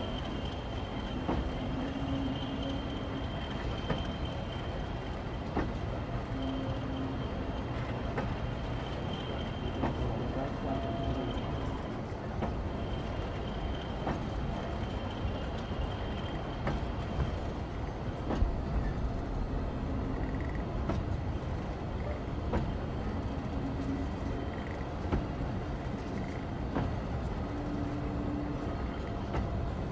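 HAA coal hopper wagons of a merry-go-round train rolling slowly past, a steady rumble with scattered clicks and knocks from the wheels and running gear. Faint squealing tones come and go.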